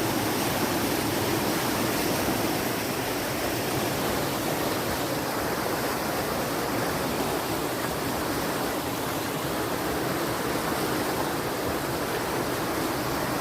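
Fast-flowing water rushing, a steady, unbroken noise with no let-up.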